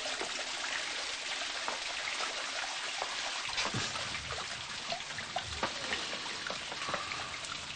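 Steady trickling and splashing of running water. A few soft knocks from about halfway through as a chair is sat on.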